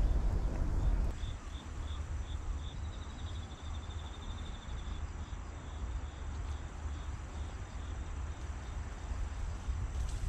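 A cricket chirping in short, regular chirps about three times a second, running into a quick trill for about two seconds near the middle. A low rumble lies underneath and is louder for the first second, then drops suddenly.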